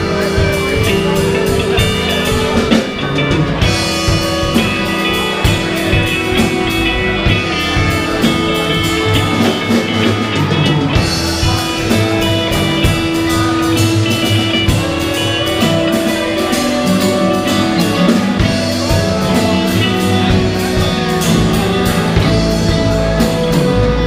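Live Americana band playing an instrumental passage: fiddle, guitar, upright bass and drum kit over a steady beat, with no singing.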